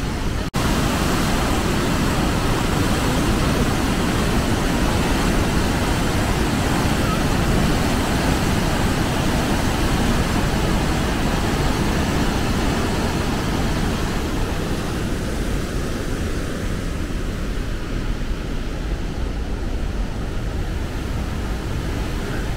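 Steady roar of a waterfall and whitewater rushing through a rock canyon. The sound briefly drops out about half a second in.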